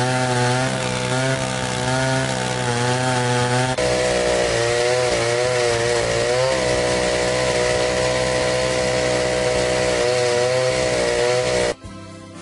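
Large Stihl two-stroke chainsaw cutting through a big oak trunk: the engine runs under load, its pitch wavering up and down as the chain bites into the wood. The sound cuts out briefly near the end.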